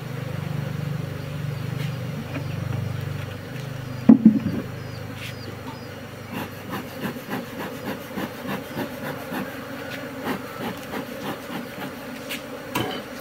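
Honeybees buzzing in a low steady drone at an open wooden hive for the first few seconds, then a loud knock of wood about four seconds in. After that comes a run of short, irregular clicks and rubbing noises as the hive box and a bee smoker are handled, with another knock near the end.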